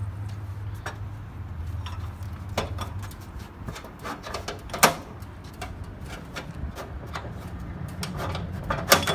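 Sharp clanks and clicks from a travel trailer's metal fold-out entry steps being handled, the loudest about five seconds in and a cluster near the end, over a low steady hum.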